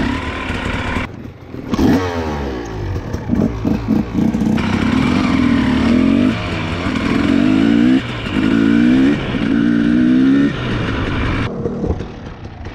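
Enduro dirt bike engine revving in repeated bursts, its pitch climbing and falling back several times.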